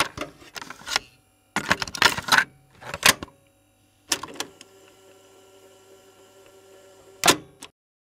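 Short bursts of rapid sharp clicks, five clusters in all, the loudest about two seconds in and near the end, with a faint steady hum of several tones between the last two.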